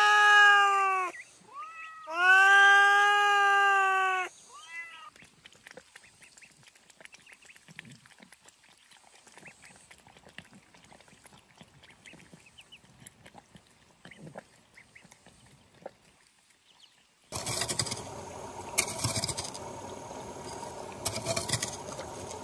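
Ginger cat meowing loudly: two long meows, then a short one. Faint scattered clicks of cats lapping soup from a bowl follow. About three-quarters of the way in, a steady outdoor noise begins, with a few short louder sounds from ducklings in shallow water.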